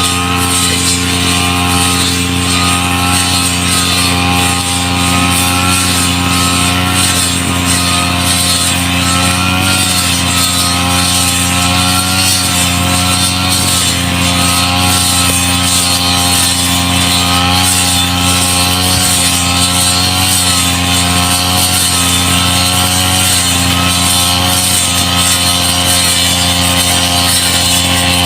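Petrol brush cutter (grass-cutting machine) engine running steadily at an even speed, with a slight waver in its pitch.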